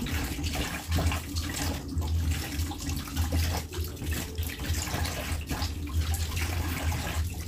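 Kitchen tap running into a stainless steel sink, the stream splashing irregularly over hands as raw chicken pieces are rinsed under it, over a steady low hum.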